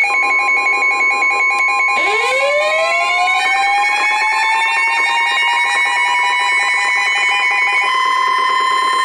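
Layered emergency alert sounds signalling a warning: a steady high alert tone over fast-pulsing alarm beeps. About two seconds in, a siren winds up, rising slowly in pitch and then holding high. The beeping stops about a second before the end while the siren goes on.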